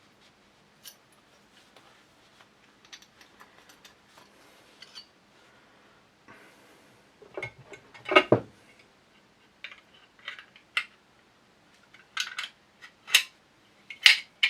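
Small steel shotgun parts clicking, scraping and clinking against each other by hand as the bottom metal is worked into the receiver, with a louder metallic knock about eight seconds in and a run of sharp clicks near the end.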